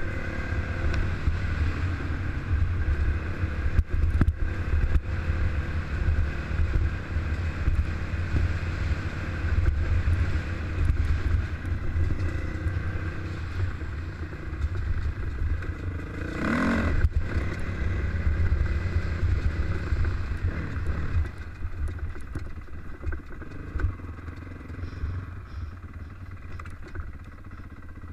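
Dirt bike engine running as it rides a gravel trail, heard from a helmet-mounted camera with a heavy low rumble. A brief rev rises and falls about two-thirds of the way through, and the engine gets quieter near the end as the bike slows.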